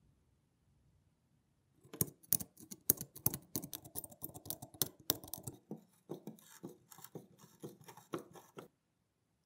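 A steel pick scraping and clicking against a rusted screw head on a rusty iron bank part, picking rust out of the screw. It is a rapid run of sharp scratchy clicks that starts about two seconds in, thins out after the middle and stops shortly before the end.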